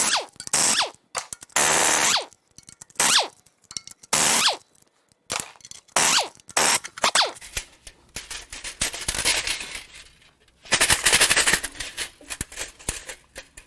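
Impact wrench hammering in short bursts, the motor whining down after each trigger release, as it undoes the exhaust manifold fasteners on a Toyota 2UZ-FE V8's cylinder head. Near the end come two longer runs of hammering.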